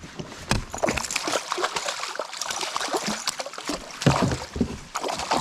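Water splashing and irregular knocks at the side of a kayak as a hooked largemouth bass is pulled in and landed, loudest about four seconds in.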